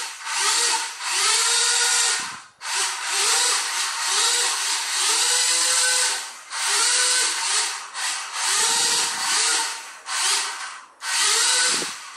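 Small electric gear motors of a DIY RC car whirring in about ten stop-start bursts as the drive is switched on and off. The bursts last from under a second to a few seconds, and each rises in pitch as it spins up and falls as it winds down.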